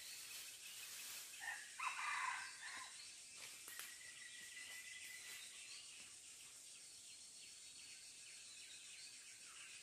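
A junglefowl call: one rough burst about two seconds in, over a steady high insect drone.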